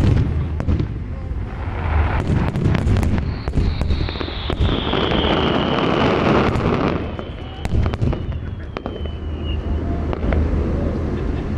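Aerial fireworks display: shells bursting with a rapid series of bangs and crackles, densest about halfway through. A long high whistle slowly falls in pitch from about three seconds in.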